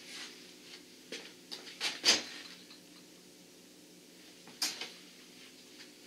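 Handling noise: a few light knocks and clatters as things are picked up and set against the plastic tote, the loudest about two seconds in and another later on, over a faint steady hum.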